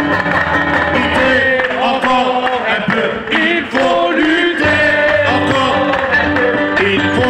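Worship song sung by a man through a handheld microphone and portable loudspeaker, with acoustic guitar accompaniment and people joining in and clapping along.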